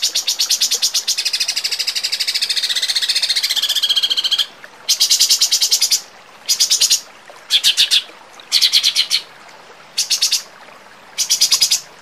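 Recorded songbird giving sharp, rapid-fire trills of quickly repeated high notes: one long unbroken trill for about four seconds, then six short bursts roughly a second apart.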